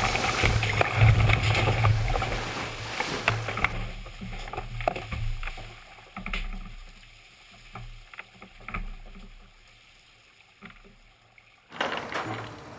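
A sailing yacht being rolled over in a capsize test: rushing, splashing water with a low rumble and sharp knocks, loud for the first few seconds. It then dies down to scattered knocks and splashes, and a fresh burst of water noise comes in near the end.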